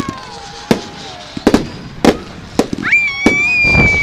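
Fireworks going off: a string of sharp bangs, and about three seconds in a whistling firework rises quickly to a steady high note and holds it.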